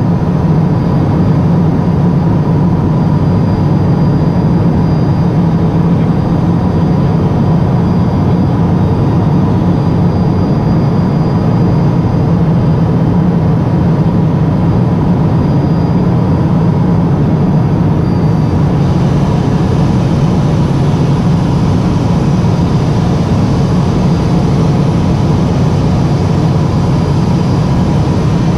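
Cockpit noise of a Cessna P210 Silver Eagle's Rolls-Royce turboprop engine and propeller on final approach: a steady low drone with a thin, even whine and airflow hiss, heard inside the cabin.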